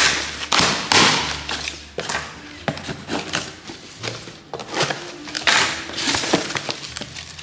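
Packaging and stationery being handled on a tabletop: bursts of rustling and crinkling, with scattered taps and knocks as items are set down.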